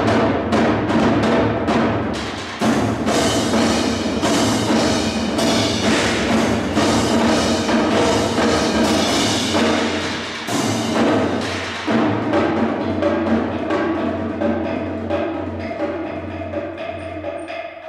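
Percussion ensemble playing a fast, dense passage of drum strokes on snare drums, tom-toms and a large drum, with cymbals. It eases off somewhat over the last few seconds.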